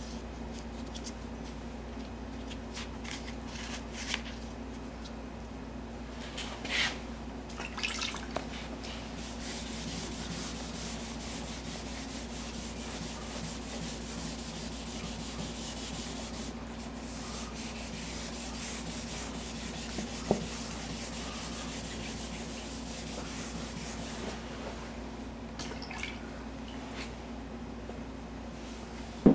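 Hand sanding with 1500-grit paper: steady back-and-forth rubbing on painted car body panel, smoothing out paint runs before buffing. A steady low hum sits underneath, with a few light clicks.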